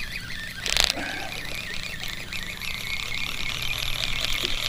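Fishing reel being cranked steadily while a hooked bass is reeled in. There is a brief knock about a second in.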